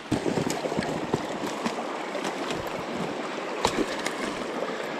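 Footsteps crunching through snow and dry brush along a stream bank, with frequent sharp crackles and snaps of twigs underfoot, over the steady rush of the flowing stream.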